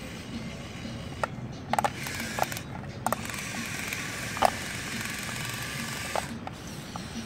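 Radio-controlled Komatsu model excavator's small electric motors and gearboxes whirring as the arm and bucket move. The whir runs from about two seconds in until a little after six seconds, with a scatter of sharp clicks and clacks from the mechanism and rubble, the loudest about four and a half seconds in.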